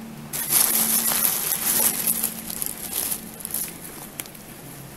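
Plastic bag crinkling and damp potting soil rustling as rubber-gloved hands dig a succulent out of its soil; a dense crackly rustle for about the first three seconds, then fainter scattered clicks and crinkles.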